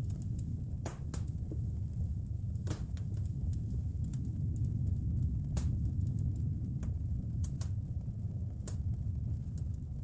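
Wood fire crackling in a fireplace, irregular sharp pops and snaps over a steady low rumble of blizzard wind.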